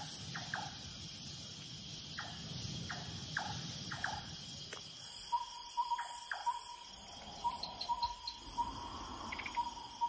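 Tropical forest insect chorus: crickets trilling steadily on a high note. Short repeated chirps sound through the first half, and from about halfway a steady pulsing call joins in.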